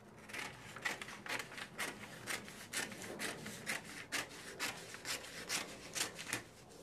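Scissors cutting through brown pattern paper: a steady run of snips, about two a second.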